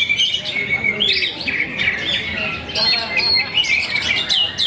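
Oriental magpie-robin singing: a rapid, unbroken stream of varied whistles, chirps and harsh squawking notes, the phrases crowding and overlapping one another.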